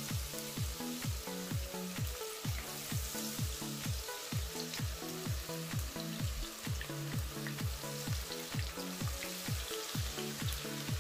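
Background music with a steady beat, about two beats a second, over the continuous sizzle of tempura-battered vegetable strips deep-frying in hot oil.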